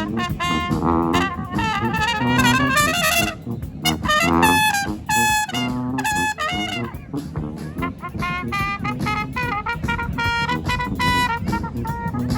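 A brass band plays a lively tune, with trumpets and trombones together. The high horns bend and waver on held notes about two to five seconds in, over a steady low brass line.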